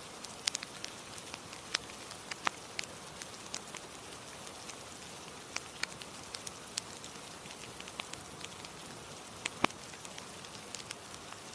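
Steady rain hiss with irregular sharp crackles and pops from a wood fire, one pop standing out loudest late on.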